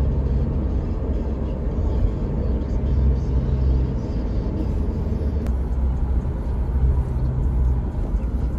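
A car driving along a road, heard from inside the cabin: a steady low rumble of road and engine noise.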